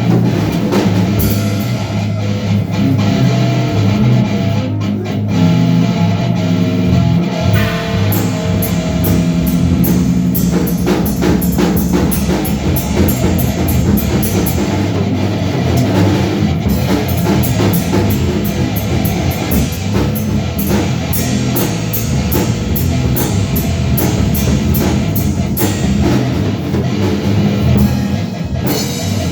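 Rock music with a steady drum beat and distorted electric guitar.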